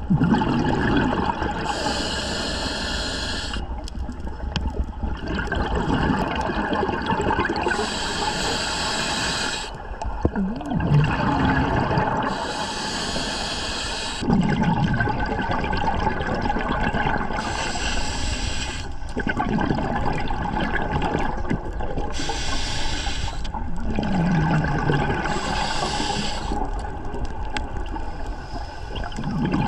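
Scuba diver breathing through a regulator underwater: a hissing inhale, then a gurgling rush of exhaled bubbles, repeating about every five seconds.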